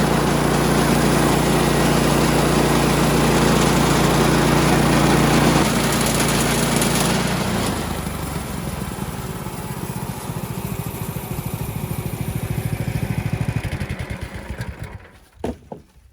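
Woodland Mills band sawmill's gas engine running at full throttle while the band blade cuts through a cedar log. About seven and a half seconds in it drops in pitch to a lower, pulsing idle, then dies away near the end.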